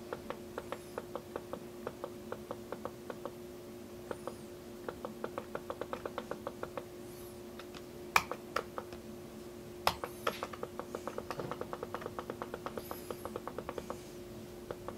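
Rapid, repeated clicks at a laptop, several a second, paging through photos one after another, with a few louder clicks about eight and ten seconds in. A faint steady hum lies underneath.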